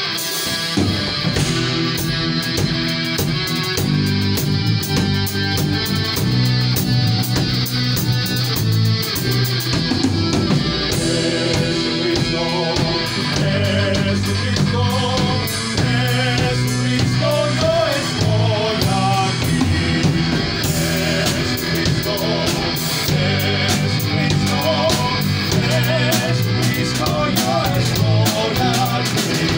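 Rock band playing live: electric guitars, bass guitar and a Tama drum kit in a driving rock groove, with a voice singing into a microphone over it from partway through.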